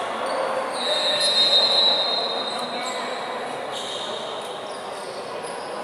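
Basketball shoes squeaking on the court: one long high squeal and a few shorter squeaks, over the hall's steady background of players' and spectators' voices.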